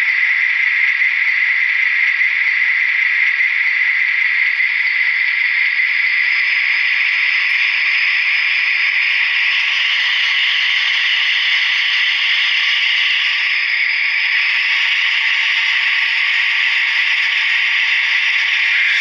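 Diesel engine sound from the DCC sound decoder in an HO-scale SNCF BB67000 model locomotive, playing through its small onboard speaker: a steady engine drone that is thin, with no low end.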